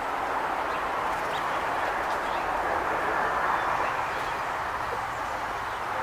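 Steady outdoor background rush with a few faint, short bird chirps.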